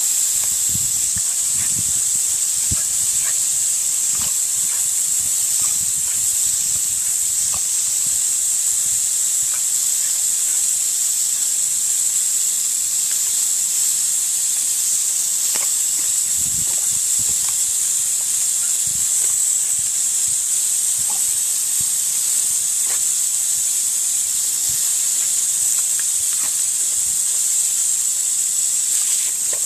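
Garden hose nozzle spraying a jet of water: a steady, high hiss, with faint scattered thumps underneath.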